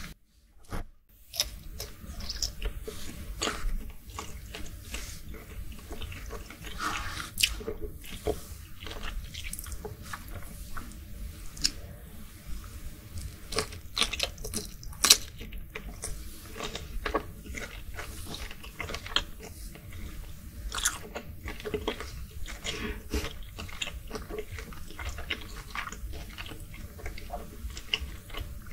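Close-miked ASMR chewing and biting of cooked peeled shrimp: irregular wet mouth clicks and smacks as the shrimp are bitten and chewed, broken by a short silence about a second in.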